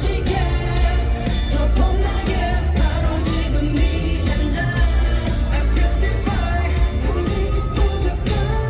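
Loud live pop performance of male group vocals singing over heavy bass and a steady drum beat, played through a concert PA.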